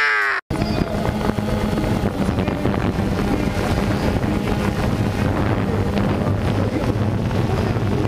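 Multirotor drone's motors and propellers running with a steady drone and hum, with wind buffeting the onboard camera's microphone. It starts abruptly about half a second in.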